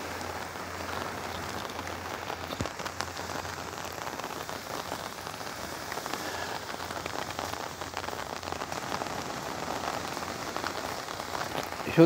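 Rain falling on an open umbrella held just overhead: a steady hiss of rain with scattered sharp hits of single drops.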